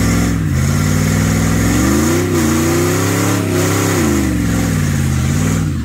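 Dodge Dakota R/T's 5.9 Magnum V8 revving hard in a brake-stand burnout, the rear tyres spinning. The revs climb over the first three seconds, dip briefly and hold high, then fall and drop back to idle near the end.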